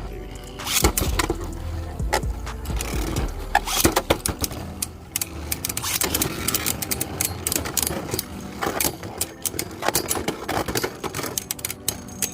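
Several Beyblade Burst spinning tops whirring and rattling around a plastic stadium, with frequent sharp clacks as they collide.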